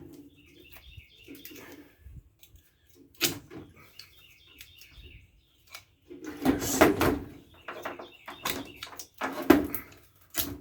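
Knocks and clatter of microwave oven parts being handled and set down, loudest about two-thirds of the way through and again near the end. A bird chirps repeatedly in the background.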